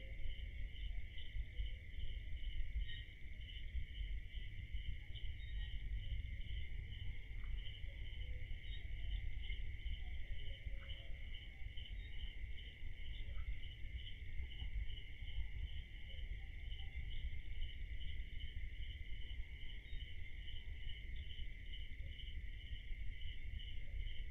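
Night insects, crickets, chirring in a steady chorus: one continuous high trill and one evenly pulsing trill, over a constant low rumble.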